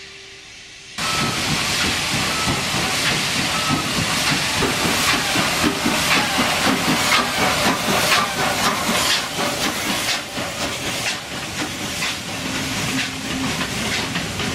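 Steam locomotive working hard past at close range: loud hissing steam with a run of chuffs, which starts suddenly about a second in after the fading tail of a steam whistle. The train keeps rolling by to the end.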